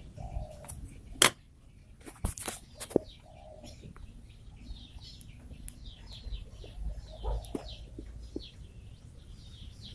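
Small birds chirping repeatedly, with a few sharp knocks, the loudest about a second in and a cluster around two to three seconds in.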